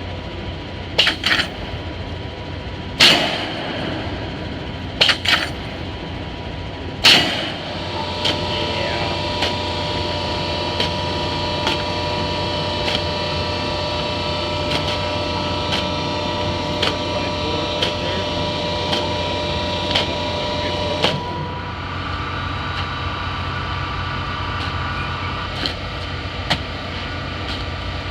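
Filter press machinery running with a steady hum, with six sharp knocks in the first seven seconds. The hum changes pitch about seven seconds in and drops again about twenty-one seconds in.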